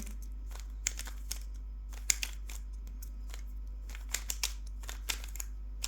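Rubik's cube layers being turned quickly by hand during the last algorithm of the solve: irregular quick clicks and clacks of the plastic pieces, some in rapid clusters.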